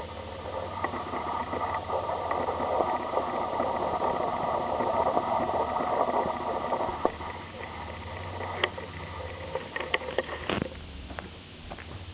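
A passing vehicle: a rush of noise that swells over several seconds and then falls away, followed by a few light clicks of footsteps.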